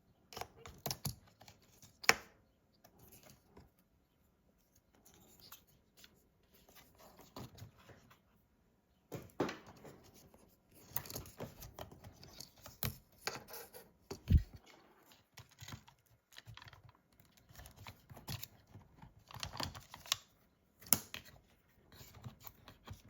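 Scattered small clicks, taps and scrapes of tools and small parts being handled while a MacBook Pro laptop is taken apart, with short quiet gaps and a soft low thump about fourteen seconds in.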